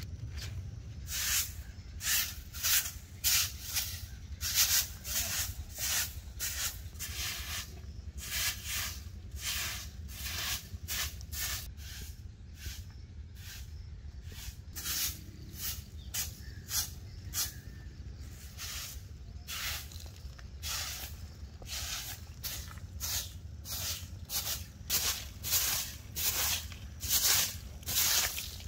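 Repeated scratchy swishing strokes on dry, dusty ground, about one or two a second: a small hand hoe scraping out weeds and a short twig broom sweeping bare earth.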